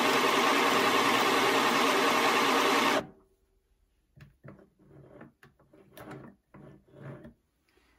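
Compact electric sewing machine (a Midi machine) running steadily as it stitches a hem through thick net curtain fabric, then stopping abruptly about three seconds in. Faint clicks and handling sounds follow as the machine is handled.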